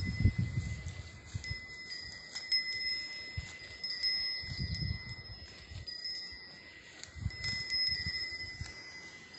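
A steady high ringing at two pitches at once, holding with short breaks, over low bumps and rustles.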